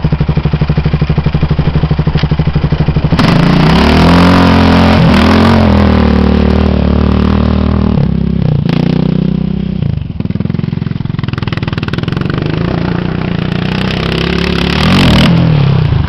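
Quad ATV engine idling with a steady pulsing beat, then revving hard about three seconds in as it pulls away, its pitch rising and falling through the gears. The engine sound fades as the quad gets farther off and swells again near the end as it comes back.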